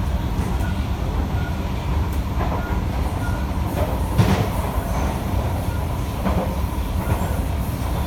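Kawasaki & CRRC Sifang C151B metro train running along the line, heard from inside the passenger car: a steady low rumble with a faint steady whine, broken by three short knocks from the wheels, the loudest about halfway through.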